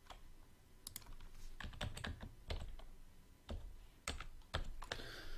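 Computer keyboard typing: a series of irregular, scattered keystrokes.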